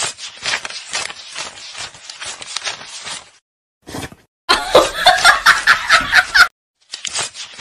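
A stack of paper banknotes being counted by hand, each note flicked off with a quick crisp snap. About four and a half seconds in, a loud burst of snickering laughter for about two seconds; near the end the note flicking starts again.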